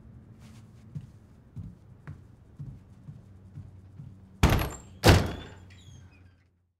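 Soft footsteps on a floor, then two loud sharp bangs about two-thirds of a second apart, each with a brief ringing tail.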